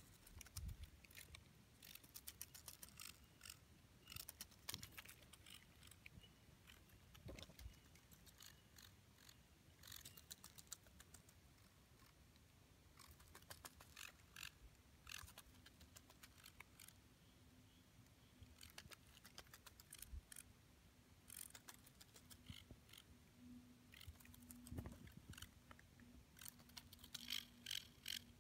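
Male purring wolf spider (Gladicosa gulosa) courting, drumming its palps on dry leaves so the leaves buzz. The sound comes as faint bursts of rapid clicks every few seconds, closest together near the end. A faint steady low hum joins about halfway through.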